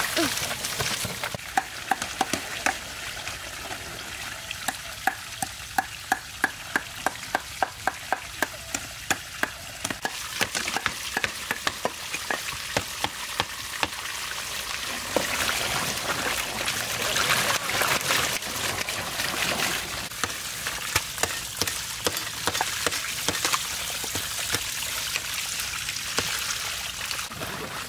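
Knife strokes scraping and tapping along large catfish on a bamboo-slat table, as slime is scraped off the skin. The strokes make a run of sharp taps, about two or three a second in the first ten seconds and more irregular after that, over a steady wet hiss.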